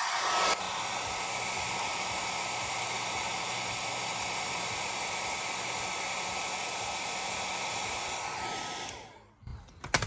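Handheld hair dryer blowing hot air onto a refrigerator control board's failing electrolytic capacitors, warming their dried-out electrolyte. It runs steadily with a faint whine, louder for the first half second, then is switched off and winds down near the end.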